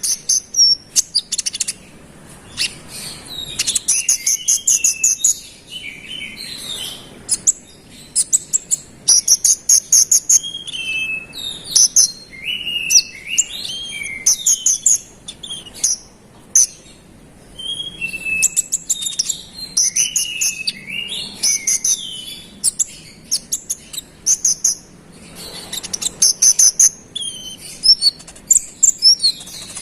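Konin songbird singing energetically and without pause: bursts of very rapid, high trilled notes alternate with short falling whistled notes, in phrases a few seconds long with brief gaps between them.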